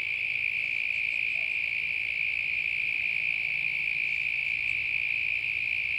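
Insects calling in a steady, unbroken chorus on one high pitch.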